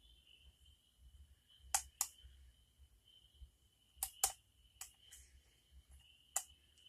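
Lock picks clicking inside a pin-tumbler lock as it is being picked: about six sharp clicks, some in quick pairs, over a faint steady high tone.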